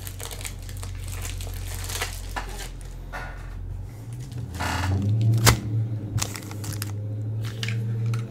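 Plastic card sleeves and cardboard boxes being rummaged through and handled: rustling and crinkling with several sharp clicks, the loudest about five and a half seconds in. A steady low hum runs underneath, growing stronger about four seconds in.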